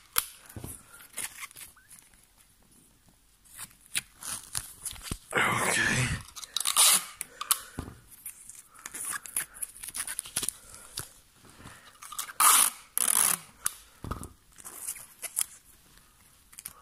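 Sticky tape being pulled off the roll in irregular rips, with one longer pull about five seconds in, torn off and crackling as it is pressed down.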